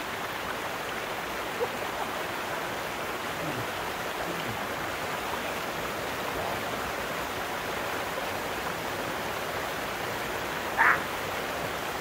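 Small waterfall pouring into a rocky plunge pool: a steady rush of falling water. Near the end a brief, louder sound cuts across it.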